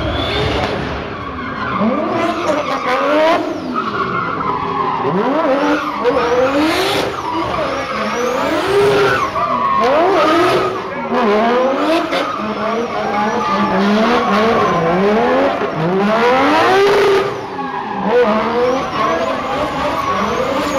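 Drift car engine revving hard in repeated rising surges, dropping back each time, about one a second, while the tyres skid and squeal as the car slides sideways through tyre smoke.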